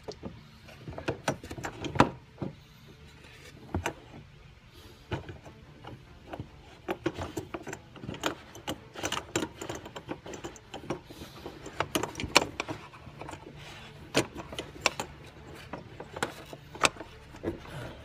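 Irregular plastic clicks, knocks and scrapes as a fuel pump's plastic lock ring is fitted over the pump flange on the fuel tank and worked round by hand, several at a time, some sharp and loud.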